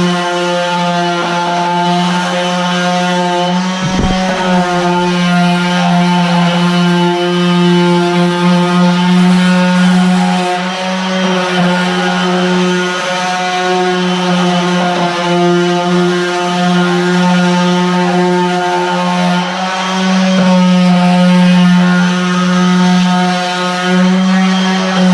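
Cordless Stanley FatMax orbital sander with a round pad and 120-grit paper running steadily against woodwork: a steady motor hum, its level wavering slightly as it is worked. There is a brief knock about four seconds in.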